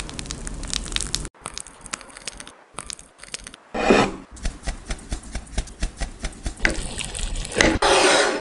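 Crackling, scraping and rustling noises with many short clicks, typical of food and utensils being handled, broken by abrupt edits. There are two louder rough passages, about four seconds in and near the end.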